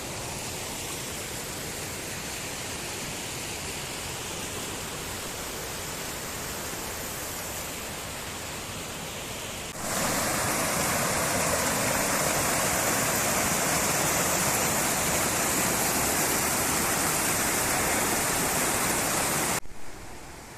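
Waterfall: a steady rush of falling water. About halfway through it turns abruptly louder and brighter, then drops off sharply shortly before the end.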